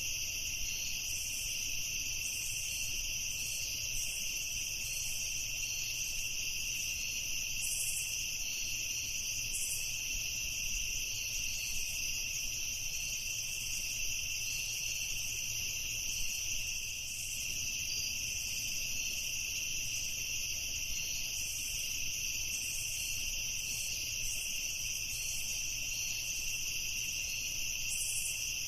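A dense chorus of crickets chirping without a break, with a faint low rumble underneath.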